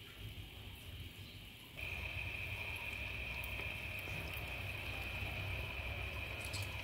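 A pot of liquid heating on a gas burner: a steady low rumble with an even high hiss, growing louder about two seconds in.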